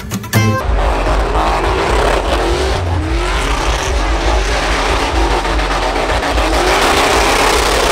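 Pickup truck doing a burnout: the engine revs up and down at high revs while the rear tyres spin on the pavement. Music cuts off about half a second in.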